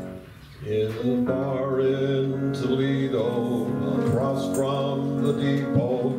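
Group of singers singing a song with instrumental accompaniment under the voices. The music drops away briefly about half a second in, then the voices and accompaniment come back in together.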